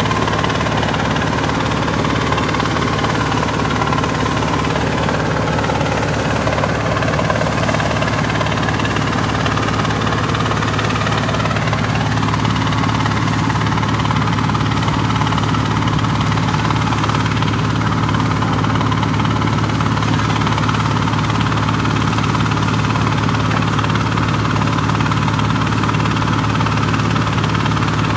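Engine of a truck-mounted borewell drilling rig running steadily at constant speed, a loud even hum with a rushing noise over it.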